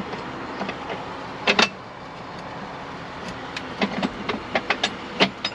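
Irregular sharp clicks and light knocks of parts and tools being handled on a tractor: a pair about one and a half seconds in and a quick run of them near the end, over a steady low background noise.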